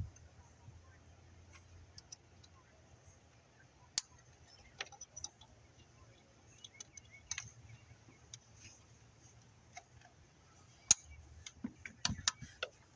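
Scattered light clicks and clinks of hand work on an engine's heater hose being refitted: a sharp tick about four seconds in, another near eleven seconds, and a quick cluster of clicks near the end, over a faint low hum.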